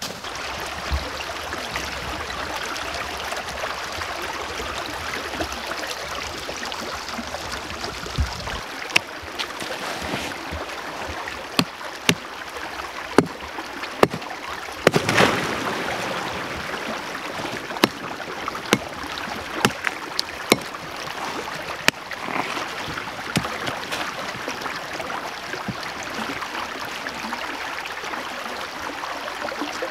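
A shallow open creek running between shelf ice, a steady rush of water. From about nine seconds in there are a dozen or so sharp knocks at irregular intervals, the strongest around the middle.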